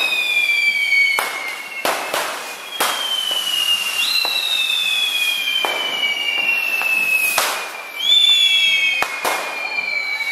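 Handheld firework fountains on poles, spraying sparks with a whistling tone that falls slowly in pitch. Several whistles overlap, with new ones starting sharply about four and eight seconds in, among sharp bangs every second or two.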